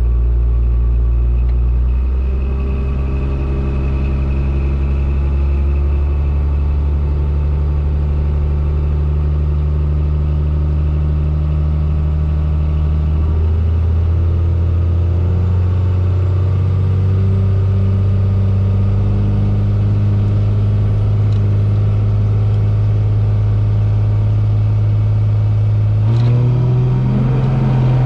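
A second-generation Dodge Ram's 12-valve Cummins turbo-diesel straight-six running, heard from inside the cab. Its pitch rises slowly through the middle and steps up sharply near the end.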